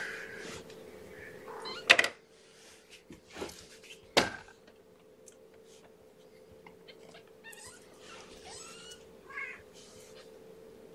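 Two-and-a-half-week-old kittens giving a few thin, high mews, mostly in a cluster past the middle. Two sharp knocks of handling in the kennel come earlier, about two seconds apart. A faint steady hum runs underneath.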